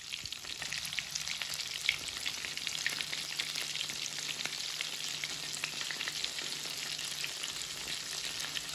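Flour-coated zinger chicken pieces deep-frying in oil in a wok: a steady sizzle with many fine crackles.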